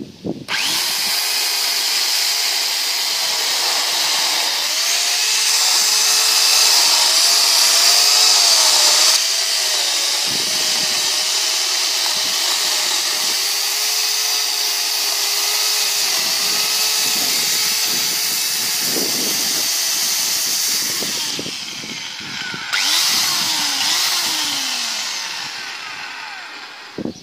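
Corded INTERTOOL DT 2204 electric chainsaw starting up and cutting through a log, its motor whine wavering as the chain bites into the wood. Near the end the trigger is released and the motor winds down.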